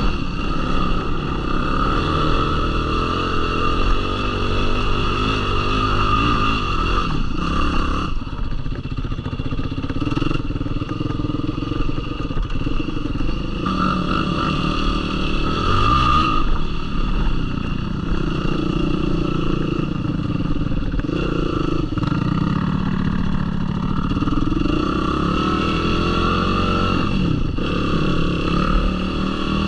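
Yamaha YFZ450R sport ATV's single-cylinder four-stroke engine running under way, revving up and down as the throttle is worked.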